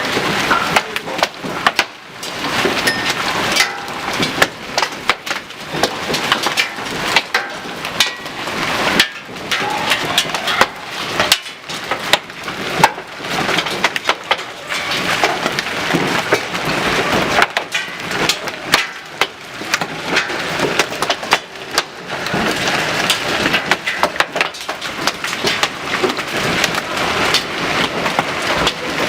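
Large hailstones, some near golf-ball size, pelting down and striking hard surfaces in a dense, irregular clatter of sharp impacts.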